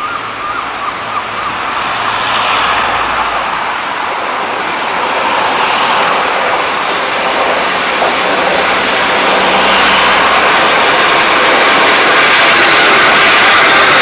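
A train approaching, its rushing noise growing steadily louder.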